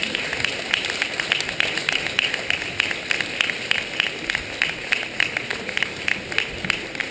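Audience applauding, with many sharp individual hand claps.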